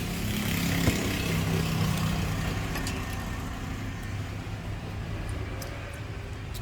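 Steady low rumble of background traffic-like noise with a faint hum, and a single sharp click just under a second in.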